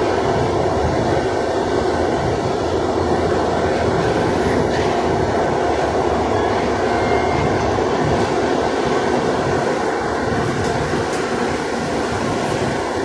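Santiago Metro AS-02 train heard from inside the car while running at speed: a steady rumble of wheels on the rails with faint occasional ticks.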